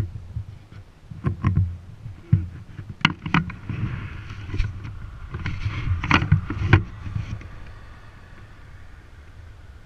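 Wind buffeting a GoPro's microphone as a low rumble, with a run of sharp knocks and bumps from the camera being handled and turned round. A hiss swells in the middle and fades near the end.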